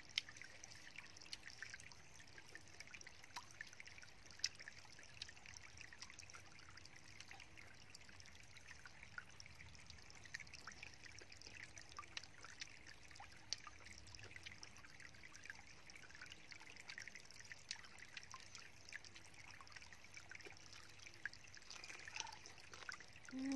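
Faint, steady trickle of water from a small stream, with scattered soft clicks.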